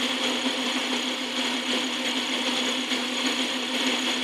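Montgomery Wards Logan metal lathe running steadily: an even motor hum with a hiss over it.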